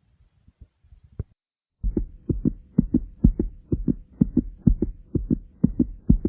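A fast heartbeat racing after jumping jacks: a strong thump with a weaker second beat close behind, a little more than twice a second. The beats are faint for about the first second, stop briefly, then come back much louder about two seconds in, over a faint steady hum.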